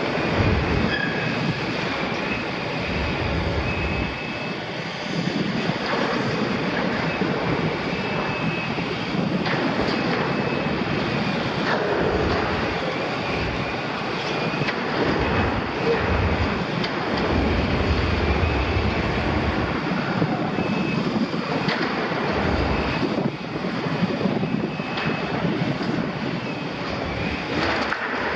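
Liebherr 974 demolition excavator tearing into the steel wall of a double-walled oil tank: sheet steel screeching and scraping in drawn-out squeals, with crunching metal and the excavator's diesel engine running under load.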